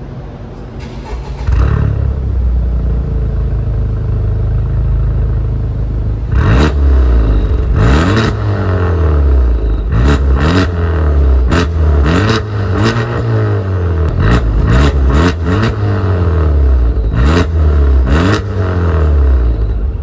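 Honda Civic Type R FK8's turbocharged four-cylinder through a Remus Sport exhaust with an aftermarket front pipe and downpipe, running steadily and then revved again and again in quick blips while standing still, the pitch rising and falling with each rev.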